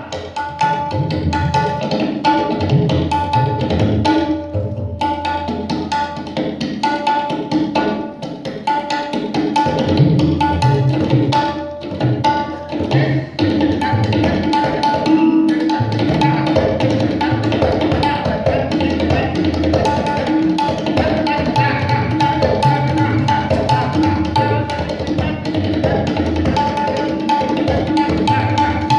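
Tabla solo: fast, dense strokes on the dayan and bayan, the ringing treble drum over deep bass strokes from the bayan.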